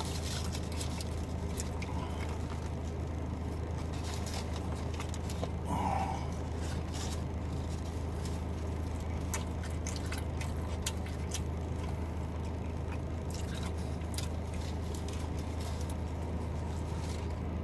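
Close-up chewing of a burger, with small wet clicks and occasional crinkles of a paper wrapper, over a steady low hum inside a car cabin.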